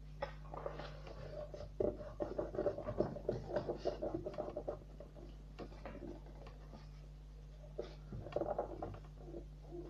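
A sheet of paper being folded by hand: rustling and crinkling in a dense run of short scratchy strokes from about two seconds in to about five, and again briefly near the end, with a steady low hum underneath.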